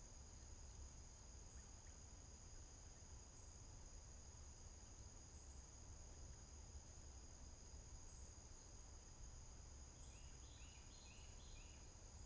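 Faint, steady high-pitched insect chorus over a low rumble, with a short run of high chirps about ten seconds in.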